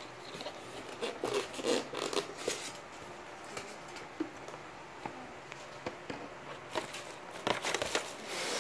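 A cardboard box being opened and its plastic-wrapped contents handled: irregular scraping, rustling and crinkling, busiest in the first few seconds and again near the end.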